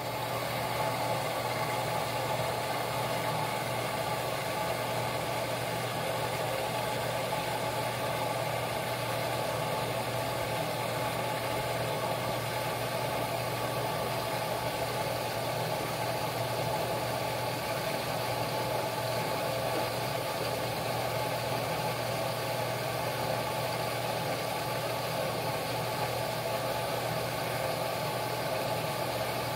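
Steady mechanical hum and whir of a front-loading washing machine running, an even low drone with a broad rushing layer above it and no change in level.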